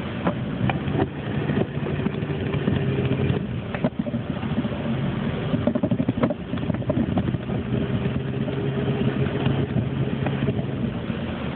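A vehicle engine running steadily with a low hum, with scattered clicks and knocks over it.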